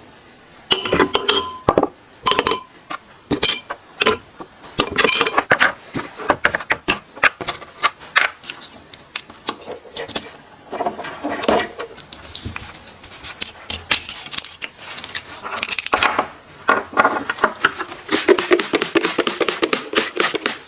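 Small metal parts and hand tools clinking, tapping and knocking against each other and a hard surface, in quick irregular clicks and clacks.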